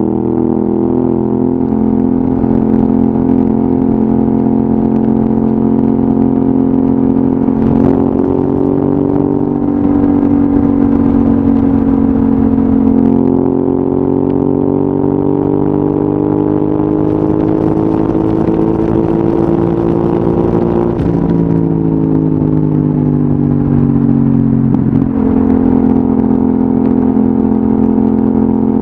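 Yamaha XSR700's parallel-twin engine through an Akrapovic exhaust, heard onboard while riding. The engine note climbs slowly under throttle and drops sharply a few times, holding steady in between.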